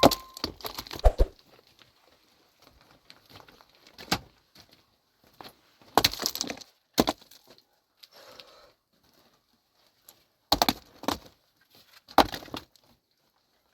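Sharp cracks and knocks of hard objects striking, in about six separate clusters with quiet gaps between them.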